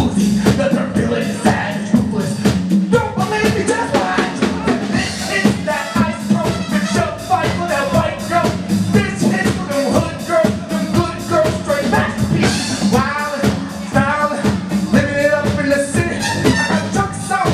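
Live band playing: a man singing over electric guitar, keyboard and drums, with a steady drum beat.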